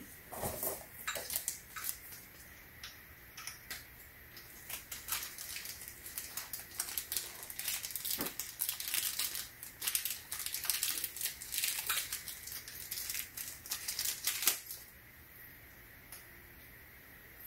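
Plastic packaging crinkling and rustling, mixed with many small clicks and taps as the parts and pins of a tripod speaker stand are handled; it stops about three seconds before the end.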